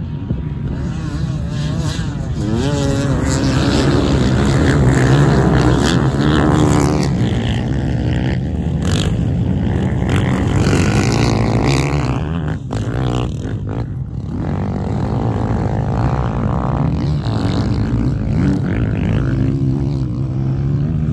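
Off-road dirt bikes racing away from a mass start at full throttle, engines revving up and down through the gears, with one bike passing close to the microphone.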